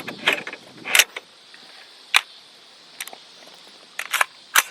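Sharp metallic clicks and clacks from handling and assembling AR-15 parts, a mil-spec bolt with its ejector removed going into the rifle, about seven separate clicks, the loudest about a second in and near the end.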